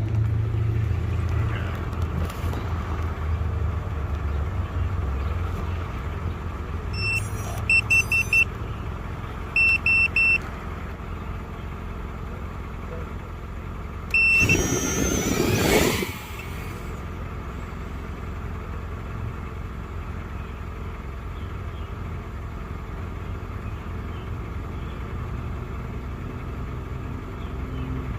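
Steady low outdoor rumble, with groups of short high electronic beeps. About halfway through comes a loud burst of whirring propeller noise lasting about two seconds, wavering in pitch, from a small FPV racing quadcopter passing close.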